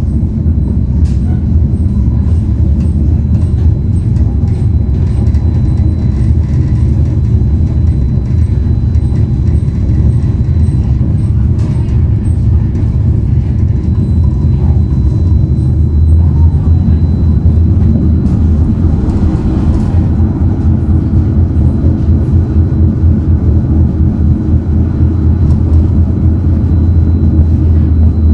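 Tram running along its track: a loud, steady low rumble.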